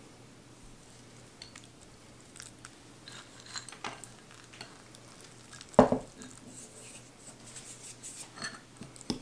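Chopped pecans sprinkled by hand into a glass bowl of mashed sweet potato: light, scattered ticks and rustles, with one sharper knock just before six seconds in.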